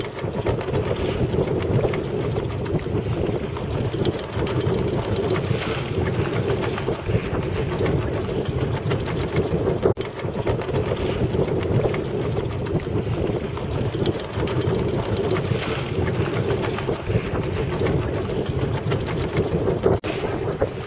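Wind buffeting the microphone over the rush of water along a sailing yacht's hull while under sail, with two brief breaks, one about halfway and one near the end.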